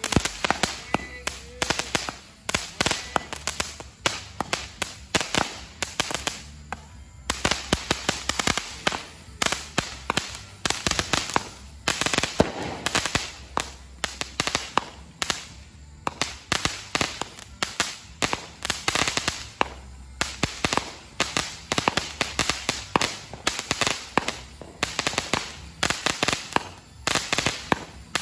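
Consumer aerial fireworks firing from the ground: a long run of sharp bangs, several a second, with brief lulls between volleys.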